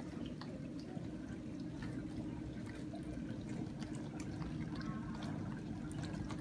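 Samsung DW80K5050 Stormwash dishwasher running quietly with the door closed: water spraying and splashing inside over a steady low hum.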